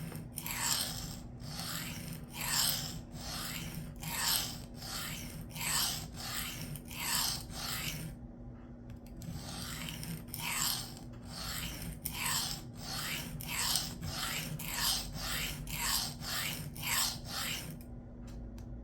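Knife blade stroked back and forth on a coarse Atoma 140 diamond plate, about two rasping strokes a second with a short pause about eight seconds in. The soft steel of the clone blade lets the coarse plate bite in hard.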